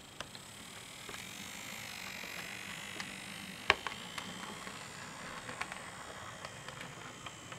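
N gauge Class 67 model locomotive running round the layout: its small electric motor gives a faint wavering whine and its wheels tick over the rail joints, with one sharper click a little under four seconds in.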